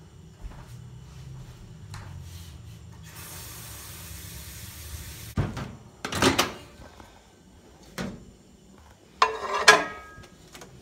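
A faint sizzle of eggs frying in a pan, then a run of sharp clicks and knocks from a microwave oven's door being opened and a plate set inside, the loudest about halfway through and again near the end.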